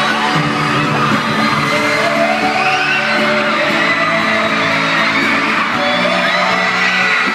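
Boy band performing a pop song live through the arena sound system, with sung vocals over sustained instruments, and fans screaming and whooping over the music.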